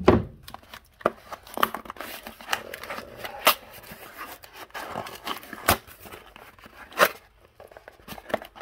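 Cardboard box being torn and prised open by hand: rustling, scraping and ripping of cardboard, broken by several sharp clicks and knocks.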